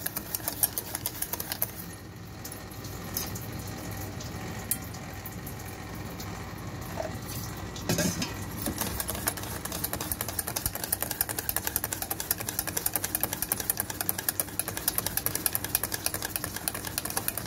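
Wire whisk beating gram-flour batter in a stainless steel bowl: fast, even clicking of the wires against the bowl, softer for a few seconds after the start and then strong again. The batter is being beaten until it turns creamy and changes colour.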